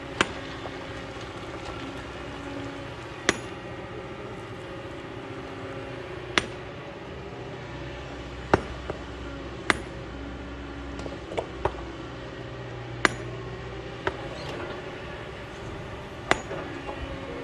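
Sharp, ringing metallic strikes of a hand hammer on stone, about eight in all, two to three seconds apart. Under them the Kobelco excavator's diesel engine runs steadily.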